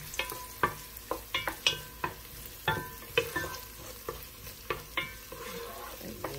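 Sliced onions and whole spices frying in hot oil in a large pot, stirred with a wooden spoon that knocks and scrapes against the pot in irregular taps, over a faint steady sizzle.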